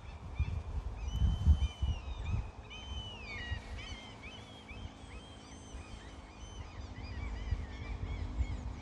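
Birds calling: a long held note about a second in and a falling call around three seconds, then many short overlapping calls, over a low uneven rumble.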